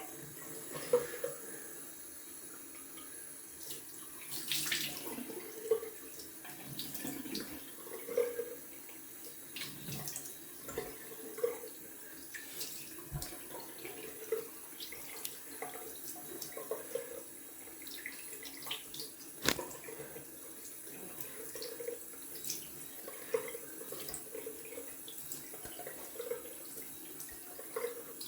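Cold water running from a tap into a bathroom sink, with repeated splashes about once a second or so as handfuls of water are rinsed over the freshly shaved face.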